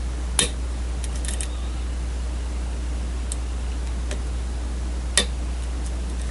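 Small metallic clicks of lock picks working the pins of a challenge lock: two sharp clicks, one about half a second in and one about five seconds in, with fainter ticks between, over a steady low hum.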